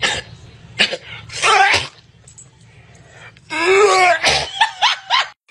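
Spaniel sneezing several times in short, sharp bursts while being rubbed, with a drawn-out yawning whine that rises and falls about two-thirds of the way through.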